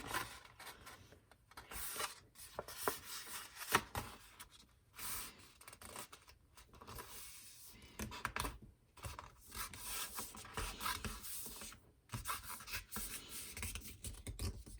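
A square sheet of paper rustling and scraping as it is folded along its second diagonal and the crease is rubbed flat, in irregular swishes and scrapes.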